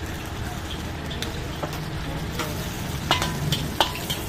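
Hot oil sizzling in a large wok as sliced onions fry. In the last second or so, a metal ladle stirring them clanks against the wok several times with a short ring.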